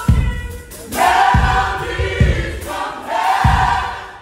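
Gospel choir singing in harmony with sustained, swelling phrases, over low thumps about once a second.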